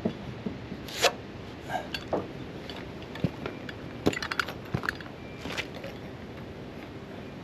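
Timber rafter being laid on top of another and handled: a series of separate wooden knocks and scrapes with small metallic clinks, the sharpest about a second in and a quick cluster of clicks around the middle.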